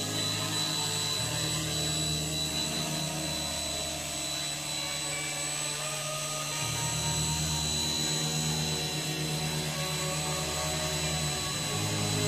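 Small electric RC helicopter with a scale Bell 212 body, motor and rotor running with a steady high whine as it lifts off and hovers.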